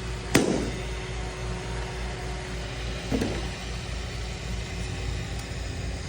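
Robot vacuum running with a steady hum, with a sharp knock about half a second in and a softer knock about three seconds in.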